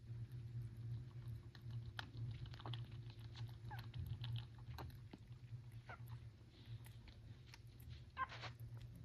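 Many small, irregular clicks and ticks from a pet rabbit at close range over a steady low hum, with one sharper short sound about eight seconds in.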